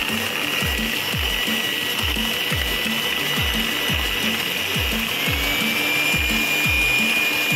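Electric hand mixer whisking eggs and powdered sugar into a foam, a steady high whine that rises a little in pitch about five seconds in. Under it, background music with a steady beat of deep bass drum hits.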